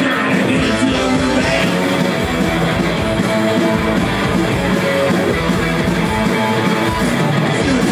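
Live punk rock band playing loudly and without a break, electric guitar to the fore.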